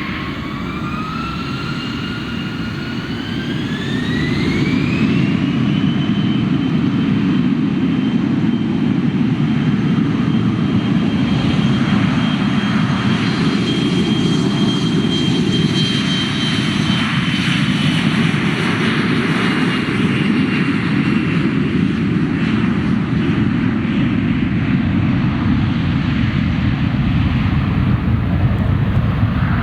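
Jet airliner's engines spooling up to takeoff thrust: a whine that rises over the first five seconds and then holds steady, over a roar that grows louder about four seconds in and runs on steadily through the takeoff run.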